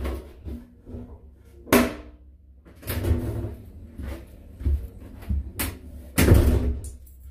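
A run of knocks and bangs from a door and its metal through-door drop box being handled, the loudest bang about six seconds in, with low rumbling between.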